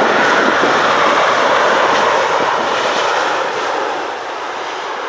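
Boeing 747-8 freighter's four GEnx turbofan engines running as the jet rolls along the runway after landing. The noise is steady and slowly fades toward the end.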